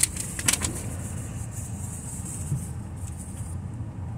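A couple of knocks near the start as grocery items are set down on a car's back seat, over a steady low rumble of a car.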